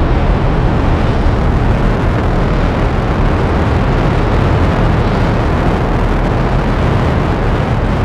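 Sci-fi spaceship sound effect: a steady, loud, deep rumble with a rushing hiss above it, unbroken throughout.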